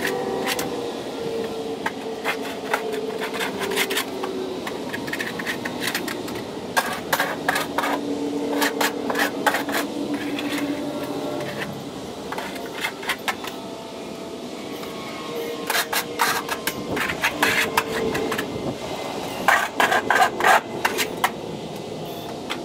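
Background music of sustained notes, with clusters of sharp clicks and taps.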